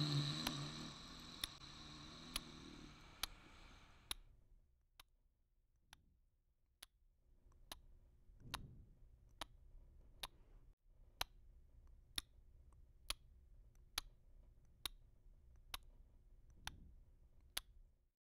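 Big Ben Moon Beam alarm clock ticking faintly and evenly, a little under one tick a second. A louder sound fades away over the first few seconds before the ticks stand alone.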